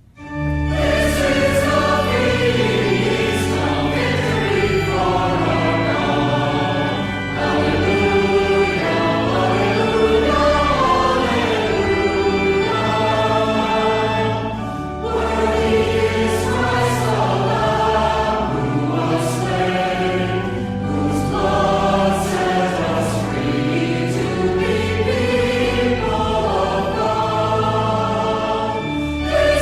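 Choir singing a hymn with sustained instrumental accompaniment.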